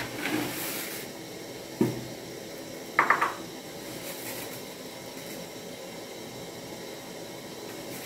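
Cooking pot and utensils being handled: a sharp knock, then about a second later a short cluster of ringing metallic clinks like a spoon striking a metal pot. A steady low hiss runs underneath.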